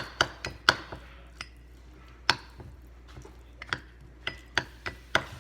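A mixing utensil knocking and clicking against a bowl while stirring a flour, water and oil dough, in quick irregular taps during the first second that then thin out to an occasional knock.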